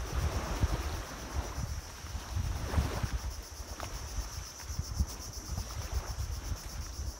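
Wind buffeting the microphone in an uneven low rumble, over a steady high-pitched drone of insects.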